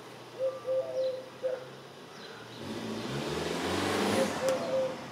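A car drives past. Its engine and tyre noise swells from about two and a half seconds in, peaks near four seconds and fades just before the end. Birds chirp in short repeated calls during the first second and a half and again near the end.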